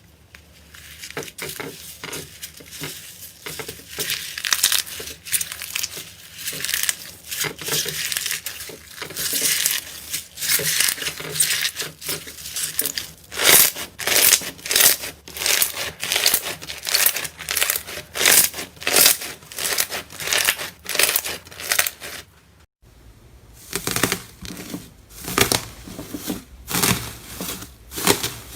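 Slime being pressed and squeezed by hand: a steady run of short crackly squishes, roughly one or two a second, with a brief break about twenty-three seconds in.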